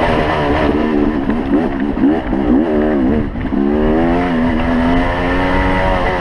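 Yamaha YZ250 two-stroke dirt bike engine revving up and down while riding a trail. Its pitch rises and falls several times, drops briefly about three seconds in, then holds steadier. Wind rumbles on the microphone underneath.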